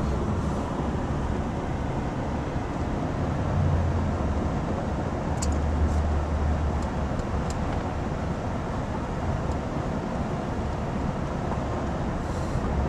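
Engine and road noise of a pickup truck heard from inside the cab while it drives along a town street: a steady hum with a low rumble that swells twice.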